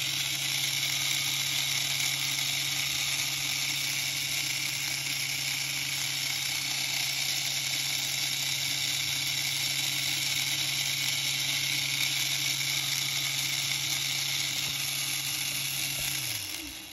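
Small electric crane gear motor running steadily, a low hum with the whir of its open gear train. Near the end it winds down, the hum dropping in pitch, and stops.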